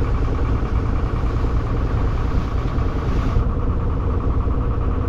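Boat engine running steadily, a low, even drone.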